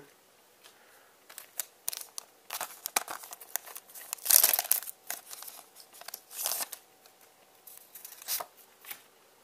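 A Cardfight!! Vanguard booster pack being crinkled and torn open by hand, in irregular crackling bursts with the loudest tear about halfway through, then the cards being slid out and shuffled.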